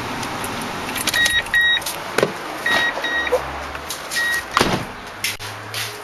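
A Toyota Tundra's warning chime beeps five times in short pairs and singles as the door is opened, with thumps and clicks of the door and hood being worked. Under it the truck's 4.7-litre V8 idles with a live misfire on cylinder 5.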